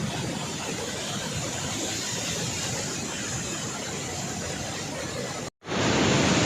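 Steady rush of water released through open dam spillway gates. About five and a half seconds in, it cuts out for a moment and comes back louder.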